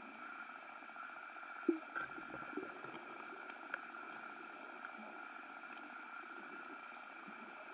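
Muffled underwater ambience picked up by a submerged camera: a steady low rumble under a constant faint hum, with scattered faint clicks and a small knock about two seconds in.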